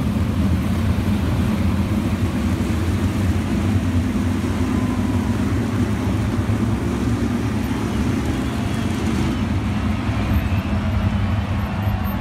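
A pack of 410 winged sprint cars, methanol-burning V8s, racing around a dirt oval: a loud, steady, deep engine sound from the cars going round at speed.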